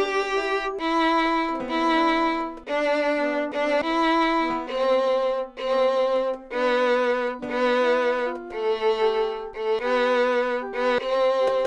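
Violin playing a slow melody of separate bowed notes with vibrato, often two notes sounding together, each held about half a second to a second.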